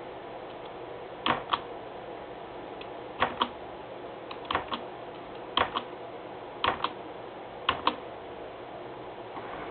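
Sharp clicks, mostly in pairs, repeated about once a second six times, like buttons or keys being pressed and released.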